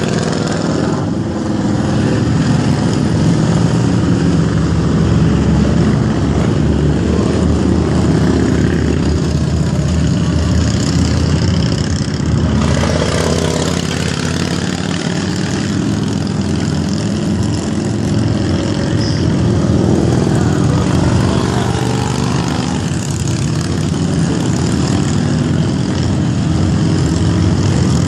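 A procession of motorcycles riding past one after another, with the odd car among them. Their engines run loud and continuous, swelling and easing a little as the bikes go by.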